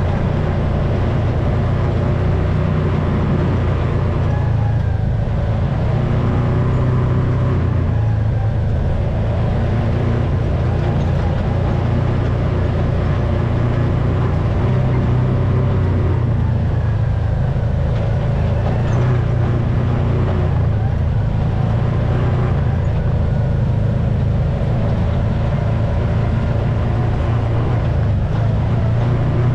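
UTV engine running steadily under way on a dirt track, heard from on board as a continuous low drone.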